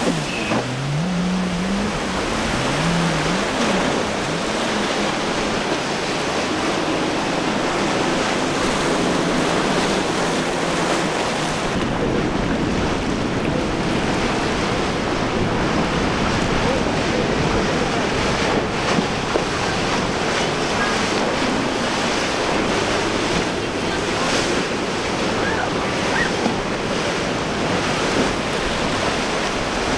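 Waves and churning surf rushing through an inlet, with wind buffeting the microphone. In the first few seconds the twin Yamaha 350 hp outboards of a passing boat briefly rise and fall in pitch.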